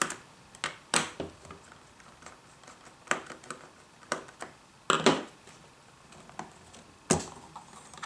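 Scattered sharp clicks and taps, the strongest about every two seconds, of a screwdriver and hands working on the plastic case of a Fluke 97 ScopeMeter as its two battery-cover screws are undone.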